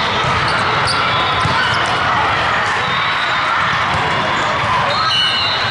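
The din of a large hall full of volleyball courts: balls being struck and bouncing over a constant hubbub of voices, with thin high squeaks near the end.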